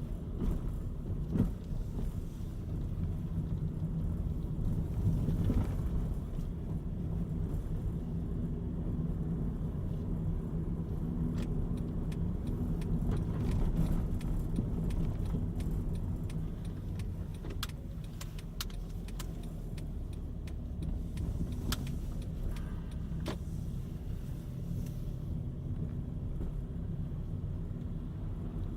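Car driving along a road: steady low engine and tyre rumble, with scattered light clicks and rattles through the middle stretch.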